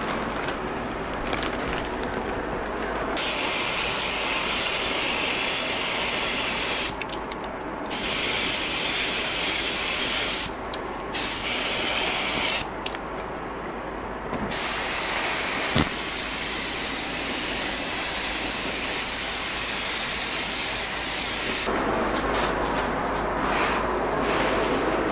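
Air-powered gravity-feed paint spray gun hissing as it sprays black paint, triggered four times with short pauses between; the last spray is the longest, about seven seconds.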